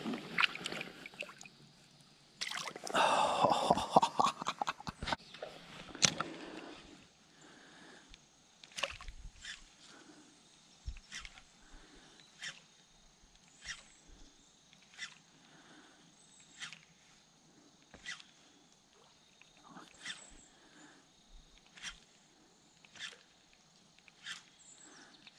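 Water sloshing for a few seconds as a smallmouth bass is let go in the shallows. Then a quiet run of light, sharp ticks about once a second from the spinning rod and reel as a topwater bait is twitched and reeled in.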